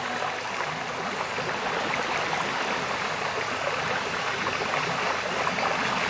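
Steady, even rush of flowing stream water below a waterfall.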